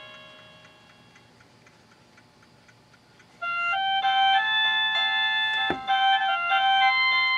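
Satu Brown wireless doorbell receiver playing its chime tunes: one tune dies away, and after a short lull a new electronic melody starts about halfway in. The melody is a stepped run of bright, steady beeping notes in several voices at once. A short low thump comes partway through it.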